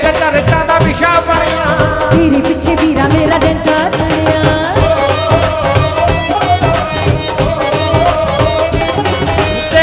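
Live Punjabi folk-pop song: singing into a stage microphone over band music with a fast, steady drum rhythm.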